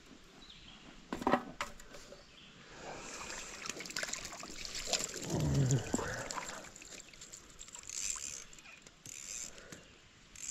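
Stream water splashing and sloshing as a hooked brook trout is fought at the surface and scooped into a landing net, with a few sharp clicks early on. A short wordless vocal sound comes about halfway through, the loudest moment.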